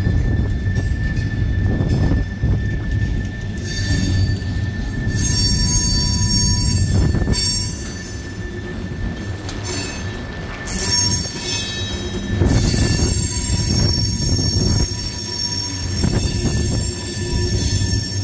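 Herzog hopper cars of a freight train rolling past with a steady rumble of wheels on rail. High-pitched metal squealing from the running gear comes and goes in several stretches, most continuous in the last third.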